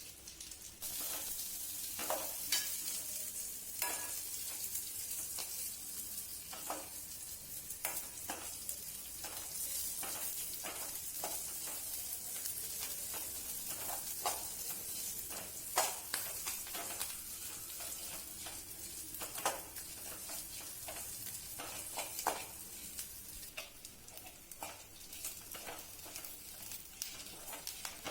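Food frying in hot oil in a pan, a steady sizzle that starts about a second in, while a utensil stirs it, scraping and clicking against the pan now and then.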